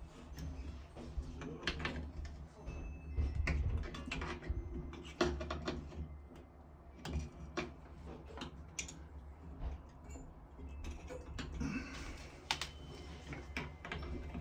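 Irregular small clicks, taps and knocks of tools and parts as a stuck pressure-balance cartridge is worked loose from a Jado shower valve body; the cartridge is bulged, so it is hard to get out.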